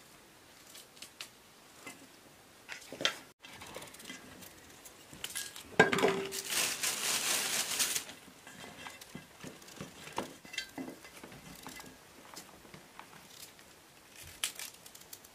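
Kitchen prep by hand: a small knife scraping and clicking as potatoes are peeled, and cauliflower florets snapped off into a metal bowl, making scattered soft taps and clinks. About six seconds in there is a louder two-second stretch of clatter and rustling that opens with a short ringing knock, like a metal bowl being struck.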